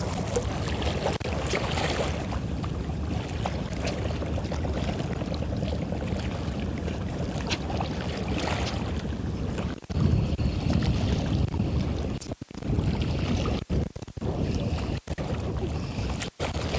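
Wind buffeting the microphone over open sea, a steady low rumble that cuts out sharply several times in the second half.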